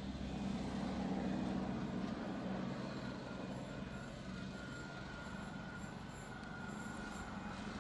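Diesel-hauled train running: a steady low engine drone that swells about a second in, with a thin, steady high whine joining about five seconds in.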